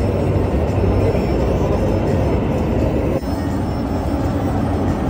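Steady, loud mechanical rumble, with a brief dip about three seconds in where the sound changes slightly.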